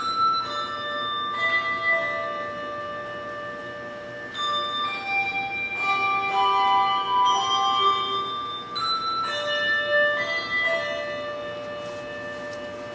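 Handbell choir playing a slow passage: chords of bronze handbells are rung and left to sustain and fade, with new chords coming every second or so and a softer lull about three seconds in.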